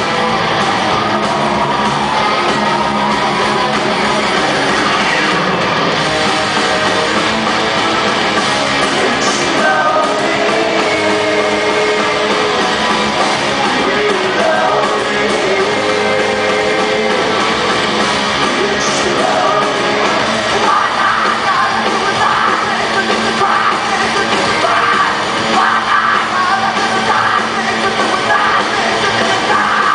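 Rock band playing live in a concert hall: distorted electric guitars and drums with a singer singing and yelling over them, recorded from within the crowd.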